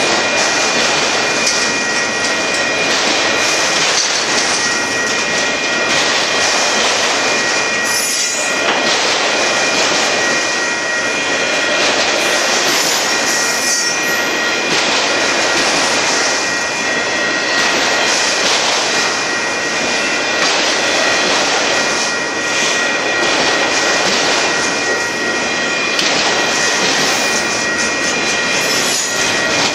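Cars of a Union Pacific manifest freight train rolling past at speed: a loud, continuous rumble and rattle of steel wheels on the rails, with a steady high-pitched tone running over it.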